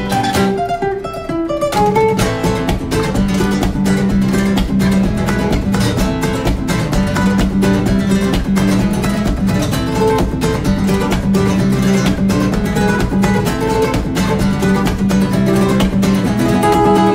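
Background music led by acoustic guitar, strummed in fast, even strokes.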